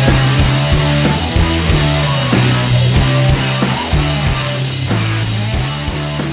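Rock music with guitar and drums and a steady beat.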